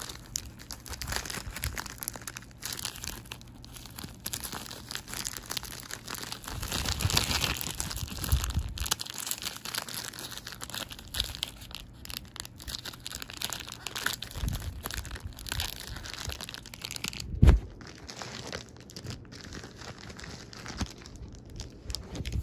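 Plastic packaging crinkling and rustling as hands handle a plastic mailer bag and wrapped item. A single sharp knock about three-quarters of the way through is the loudest sound.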